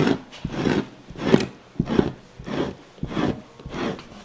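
Fleshing tool scraping a stretched beaver pelt against a wooden board, in repeated rubbing strokes about one every two-thirds of a second.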